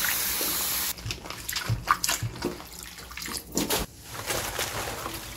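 Tap water runs into a stainless steel bowl in a sink and stops abruptly about a second in. Then comes irregular splashing and sloshing as halved napa cabbages are dipped in plain water and stacked wet in the bowl, to wet them before salting.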